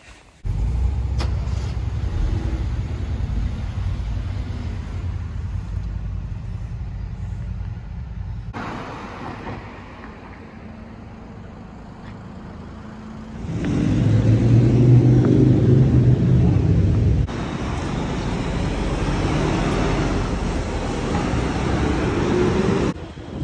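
Street traffic noise: cars and other vehicles running past on a city street, in several short stretches that change level abruptly at each cut, with a louder stretch a little past the middle.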